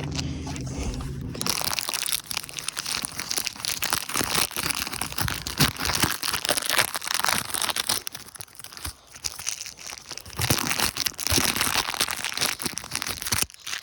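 Close, crackly crinkling and rustling with many small clicks, starting about a second and a half in and stopping just before the end. A low hum fades out under it at the start.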